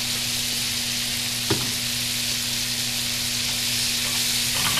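Frozen corn and shredded carrots sizzling steadily in butter in a frying pan while being stirred with a metal spoon, with one sharp knock about a second and a half in.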